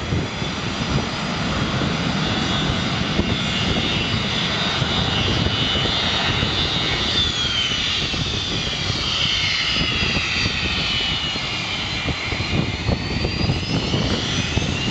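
Delta MD-88's rear-mounted Pratt & Whitney JT8D turbofan engines running at taxi power: a steady rumble and hiss with a high whine. The whine falls in pitch about halfway through and rises again near the end.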